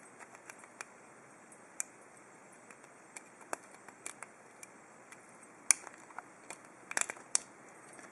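Small, irregular metallic clicks and ticks of a lock pick and tension tool working the pins inside an ABUS 72/40 aluminium padlock during single-pin picking. The loudest click comes a little before six seconds in, with a quick cluster around seven seconds.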